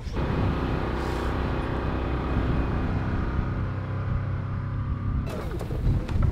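Side-by-side utility vehicle's engine running as it drives across a field: a steady low rumble with engine hum. It cuts off suddenly about five seconds in, followed by a few knocks.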